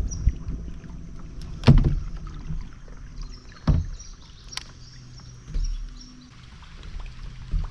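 Kayak on the water with a few hard knocks against the hull, the loudest about two seconds apart, over a low steady rumble.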